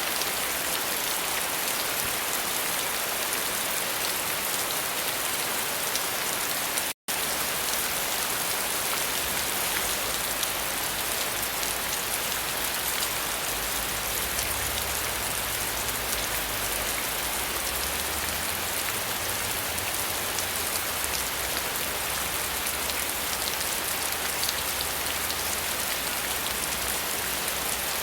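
Steady rain falling on a surface, a dense even patter. The sound cuts out completely for an instant about seven seconds in, and a faint low rumble sits under it in the second half.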